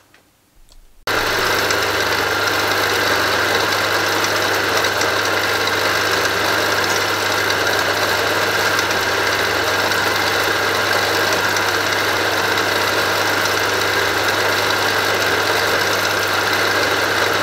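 Milling machine running, its end mill cutting the inside diameter of a pocket in a brass bezel. A steady machine drone with a strong low hum and a hiss, starting suddenly about a second in.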